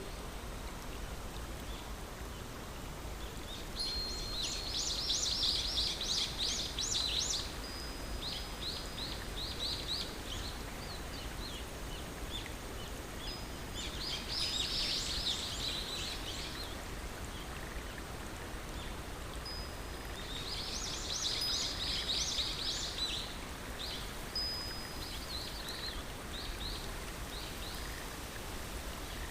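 A songbird singing three high, fast trilling phrases several seconds apart, each opening with a thin held note and trailing off into a slower run of separate notes, over the steady hiss of flowing water.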